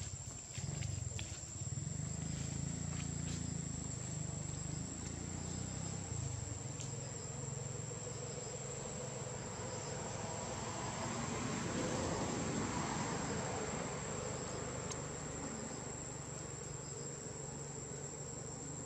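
Insects droning in the forest: a steady, high-pitched whine. A low hum sits under it for the first six seconds or so, and a broad swell of noise rises and falls around the middle.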